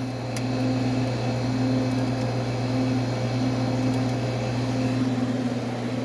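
Small air-conditioning unit running with a steady electrical hum from its compressor and fan, a few faint clicks near the start.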